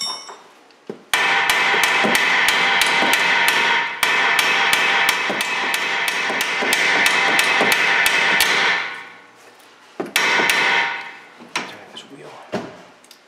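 Hammer blows on a socket set over the nut of a seized suspension stud, driving it out without damaging its threads. A rapid run of ringing metal-on-metal strikes, about five a second, lasts some seven seconds, then a short second flurry and a few single knocks follow.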